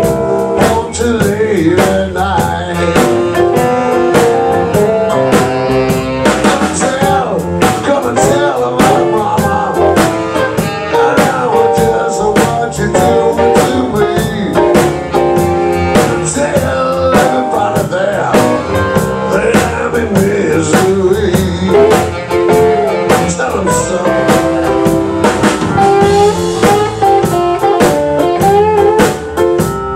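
Live band playing blues: a drum kit keeps a steady beat under electric guitars, bass, keyboard and saxophone.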